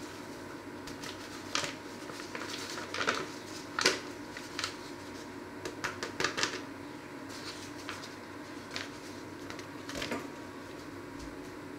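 Paper flour bag crinkling and rustling in short bursts as flour is shaken out of it into a stainless steel pot, over a steady background hum.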